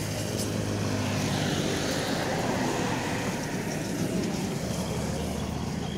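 Road traffic running steadily past, with one vehicle passing louder about two seconds in.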